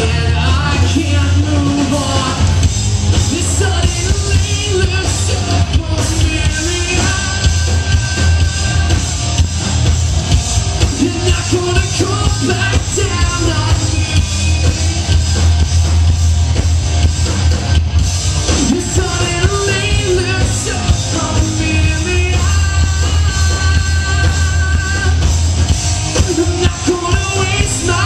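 Live rock band playing loud: a lead vocalist singing over electric guitars and drums, with a heavy, steady low end.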